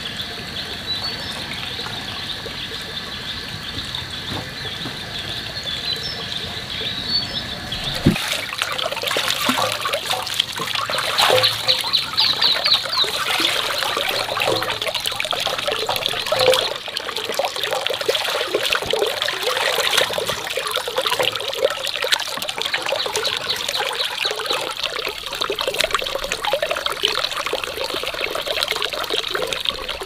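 Water running from a bamboo spout into a plastic basin. From about eight seconds in it is louder and splashier as leafy greens are washed by hand in the basin.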